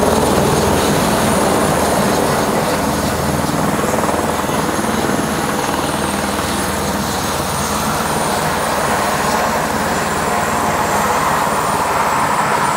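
Helicopter running: a loud, steady rush of rotor and engine noise with a thin, steady high whine over it.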